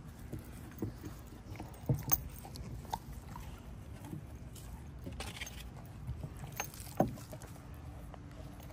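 An Alaskan malamute and another large dog chewing and licking raw-meat cupcakes off a wooden picnic table: scattered wet chewing clicks and soft knocks, the loudest about two seconds and seven seconds in.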